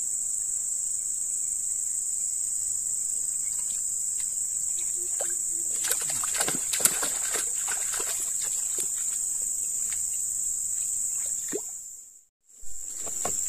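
Steady high-pitched insect drone from crickets or cicadas. From about six seconds in come a run of splashes and sloshes in the water of a small flooded hole, where a lembat catfish is going for the bait. The sound drops out briefly near the end.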